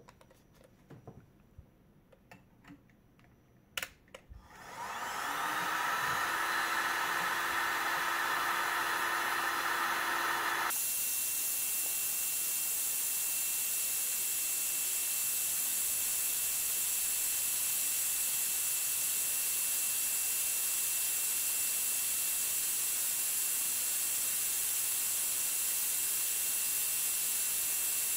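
Parkside PHLGD 2000 C4 digital heat gun switched on with a click about four seconds in. Its fan spins up to a steady blowing hum at maximum airflow. A few seconds later the sound changes abruptly to an even hiss of hot air with a thin high tone, held steady after that.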